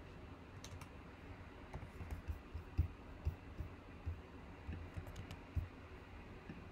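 Faint, irregular clicking and soft thumps of someone typing on a computer keyboard.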